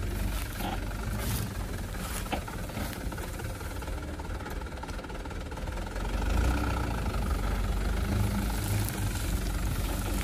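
Mitsubishi Fuso Colt Diesel truck's turbo-intercooled diesel engine running as the truck crawls over a rough field track, getting louder about six seconds in.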